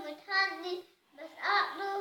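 A young child singing in a high voice, in short phrases with held notes that step in pitch, and brief pauses between them.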